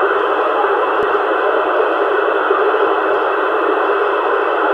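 Steady FM static hiss from a CRT 7900 CB transceiver's speaker on 27 MHz, with the squelch open and no station coming through.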